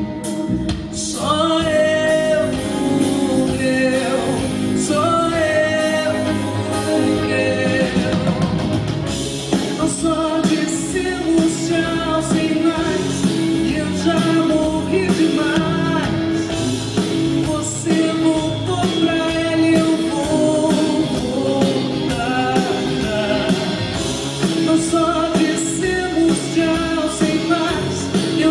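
Live concert music: a band playing with a singer's voice over it.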